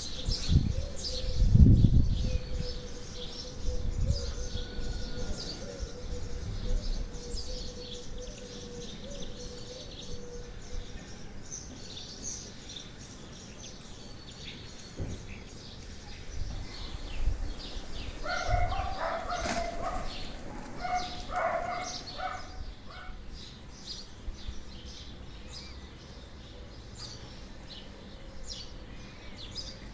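Garden birdsong: many small birds chirping and twittering. A few low thumps come in the first two seconds, and a run of short, lower-pitched calls comes about two-thirds of the way through.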